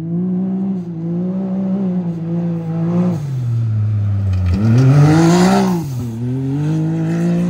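Can-Am Maverick X3 side-by-side's turbocharged three-cylinder engine being driven, revs rising and falling. A sharp rev-up comes about four and a half seconds in, with a hiss at its peak, then the revs drop back to a steady run.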